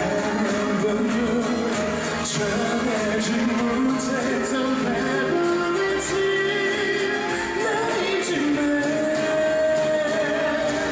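A male singer sings a pop ballad live into a handheld microphone over backing music, holding long sustained notes.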